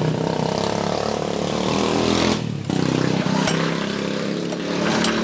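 An engine running steadily at a constant speed. It cuts out briefly about two and a half seconds in.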